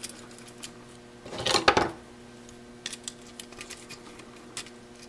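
Handling noise from a stripped floppy drive's metal chassis as a part is worked out of it: one loud scraping, rattling burst about a second and a half in, lasting about half a second, then a few light clicks. A faint steady hum runs underneath.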